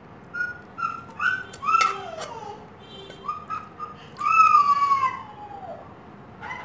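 Whistled calls: several short chirping notes that rise and fall, then a louder, longer whistle about four seconds in that slides down in pitch.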